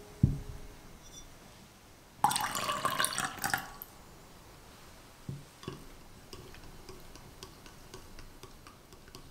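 Lemon juice poured from a small ceramic ramekin into a glass mug of milk, a splashing trickle lasting about a second and a half, as the milk is soured into buttermilk. It comes after a dull thud of the glass set down on a silicone mat, and is followed by two soft knocks and then light clinks of a utensil stirring in the glass.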